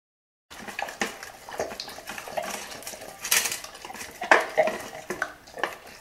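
Labrador eating chicken bones from a metal bowl: irregular chewing and crunching with the bowl clinking and clattering. It begins about half a second in, and the loudest clanks of the bowl come near the middle.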